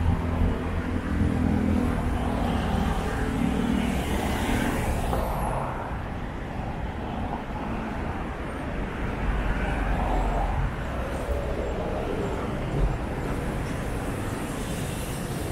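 Street traffic: motor vehicles running and passing, with a low engine hum loudest in the first few seconds that then fades into the general traffic noise.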